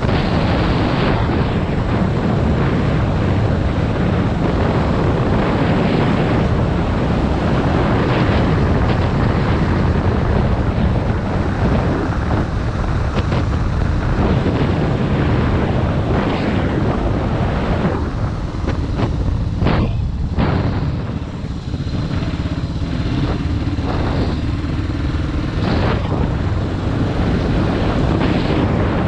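Suzuki DR650RSE single-cylinder four-stroke engine running as the motorcycle rides along, mixed with wind rushing over the microphone. The sound dips briefly about two-thirds of the way through.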